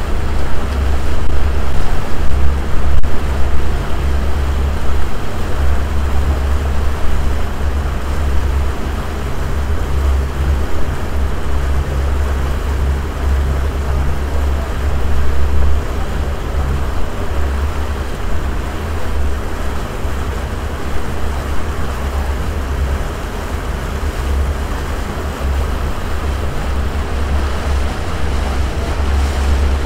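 Passenger boat under way: its engine runs with a steady low drone, mixed with the rush of water and wind rumbling on the microphone.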